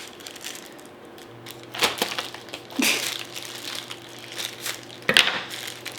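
Plastic packaging being squeezed and crinkled as someone struggles to open it, with sharp crackles about two, three and five seconds in.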